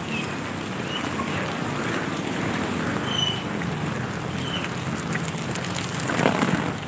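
Steady rain falling on an umbrella overhead and on a wet street, with a brief louder whoosh about six seconds in and a few short high chirps.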